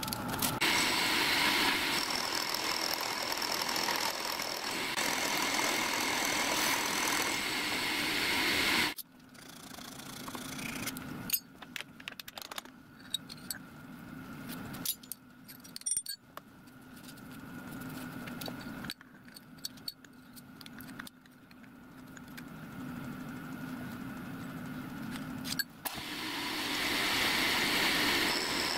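Milling machine running, its end mill cutting slots in a brass slide valve: a steady motor hum under the harsher noise of the cut. About nine seconds in the cutting noise drops away, leaving a quieter hum that breaks off abruptly several times, and the cut is loud again near the end.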